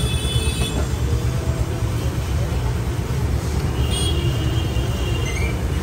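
Steady street traffic rumble from passing motor vehicles, with voices in the background.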